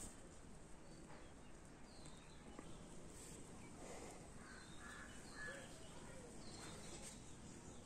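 Faint outdoor ambience with birds calling now and then: short high chirps throughout and a few brief lower calls around the middle.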